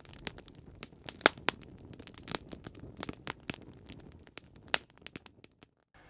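Wood campfire crackling: irregular sharp pops and snaps over a low hiss, dying away shortly before the end.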